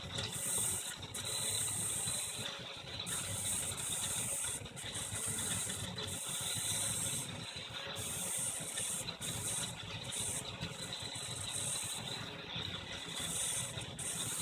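Up Plus 3D printer running: a steady low mechanical hum with a high hiss that switches on and off every second or two.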